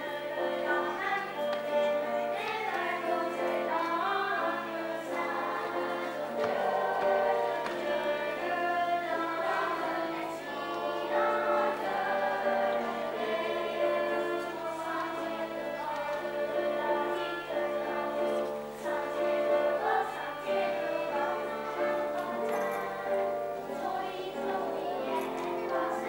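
Children's choir singing a song in unison and parts, accompanied by a violin.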